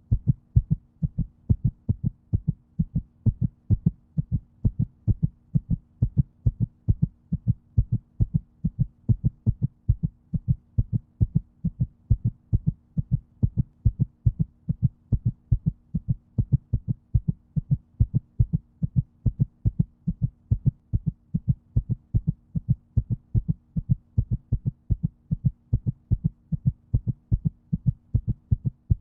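Heartbeat: a steady, even rhythm of low beats, about two to three a second, over a faint steady hum.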